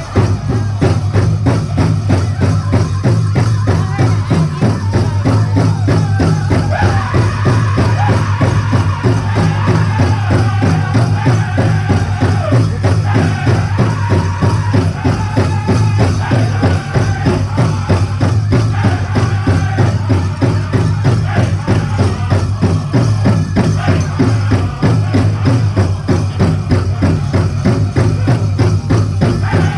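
Powwow drum group singing a chicken dance song, voices carried over a fast, steady beat on a big drum.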